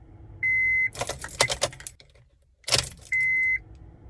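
An Acura RSX's electronic chime sounds two half-second beeps at one steady pitch, about two and a half seconds apart, while the keyring jangles between them as the ignition key is worked. The engine does not crank: a no-start that the owner puts down to a failed starter motor.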